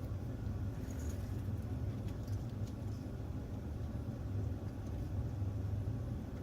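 Steady low background rumble, with a few faint light clicks scattered through it.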